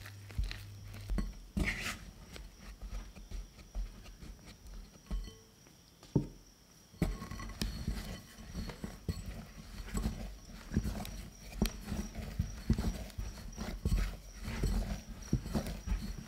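A silicone spatula scraping and tapping in a glass bowl as flour is stirred into a wet dough mix. About seven seconds in, hands start kneading the shaggy bread dough in the bowl: a quick, irregular run of soft thumps and knocks.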